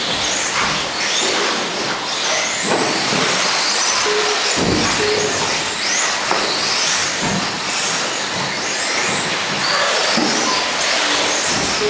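Radio-controlled off-road buggies racing: motors whining up and down in pitch as they accelerate and brake, with occasional thuds from landings and a few short beeps.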